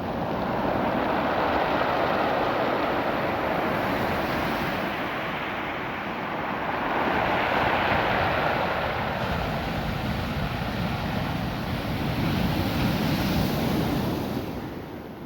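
Ocean surf washing up and back over a beach of small rounded cobble stones, a continuous rushing noise that swells and eases with each wave and fades in the last second.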